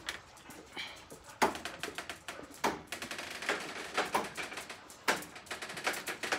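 Irregular taps and clicks of footsteps on a concrete patio floor, a few a second and uneven in strength, from a person walking with dogs.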